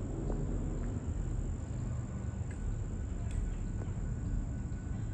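Insects singing a steady, unbroken high-pitched trill over a low, even rumble, with a few faint clicks.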